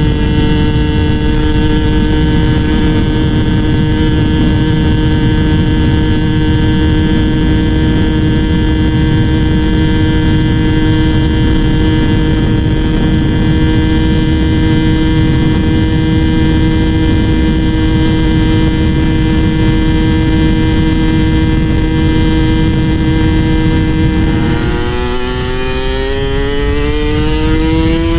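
Yamaha F1ZR two-stroke motorcycle engine running under way, its note held steady for a long stretch. Near the end the pitch climbs steadily as the bike accelerates.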